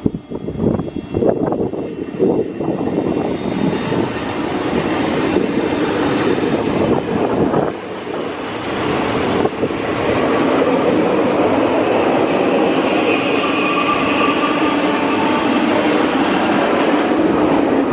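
Renfe Cercanías electric commuter train's traction equipment running, with thin whining tones over rumbling rail noise. There are uneven knocks in the first couple of seconds, and the sound grows louder and steadier about ten seconds in.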